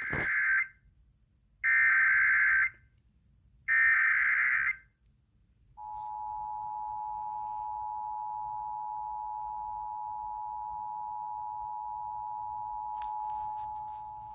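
Emergency Alert System signal for a tornado warning: three bursts of SAME digital header data, about a second each, then the two-tone attention signal, a steady dual tone of about 853 and 960 Hz held for about eight seconds.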